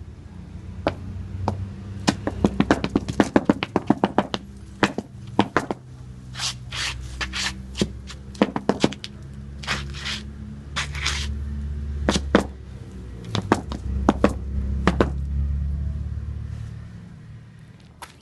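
Rhythmic taps and knocks, some in quick runs of several strikes and others single, over a low scraping rumble that swells and fades near the end.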